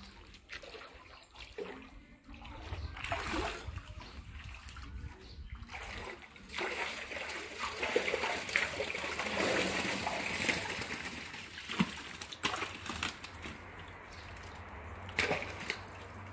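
Shallow water in a concrete fish tank sloshing and splashing as a person wades through it trying to net fish, loudest in the middle with a few sharp splashes.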